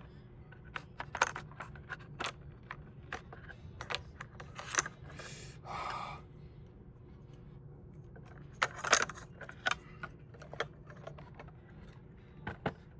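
Irregular clicks and light clatter of small hard plastic and metal parts being handled during the disassembly of a CPAP machine, with a short scrape near the middle and a quick cluster of louder clicks about two-thirds of the way through.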